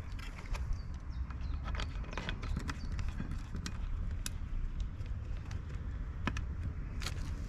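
Scattered light clicks and scrapes of a small hand tool working at the metal bulb socket of a Vespa PX rear turn-indicator lamp, over a steady low rumble.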